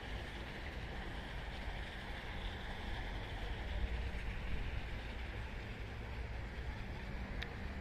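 Steady outdoor background noise: a low rumble with a hiss above it and no distinct event, apart from a faint click near the end.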